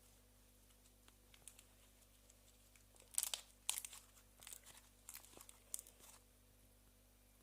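Slime being squeezed and stretched by hand, giving a burst of crackling and popping about three seconds in that runs for roughly three seconds.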